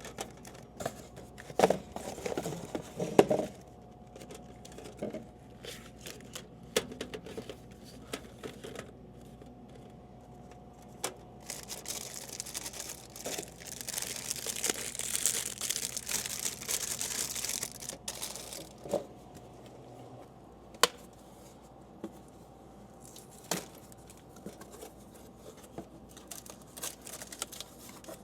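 Plastic snack packaging crinkling and being torn open during a vending machine restock, with a long stretch of tearing in the middle, and a few knocks and clicks as items are handled. A faint steady hum runs underneath.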